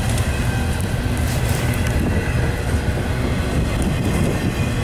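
Double-stack intermodal freight train's container cars rolling past on the rails, a steady low rumble of wheels and cars.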